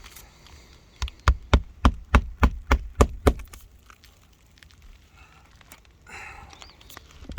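Hammer striking on an asphalt-shingle roof: a quick run of about nine blows, roughly four a second, starting about a second in and then stopping. A short rustle follows near the end.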